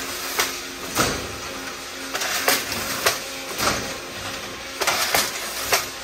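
CNC crimped wire mesh weaving machine running, with a heavy knock on each weaving stroke about every two and a half seconds (twice here) and lighter metallic clicks between them over an on-and-off low hum.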